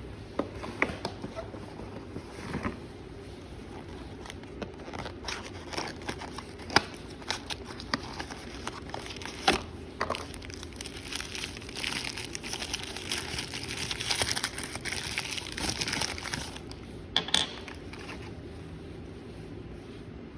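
Packaging crinkling and rustling during an unboxing, with scattered sharp clicks and taps as items are handled; the crinkling is thickest a little after the middle.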